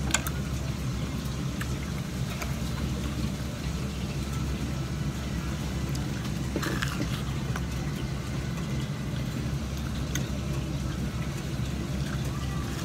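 Steady low rumble of restaurant room noise, with a few faint light clicks.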